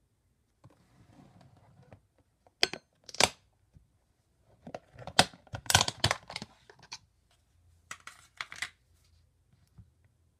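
A plastic tub of vegetable-oil spread being handled and its snap-on lid worked off: several clusters of sharp plastic clicks and crinkles.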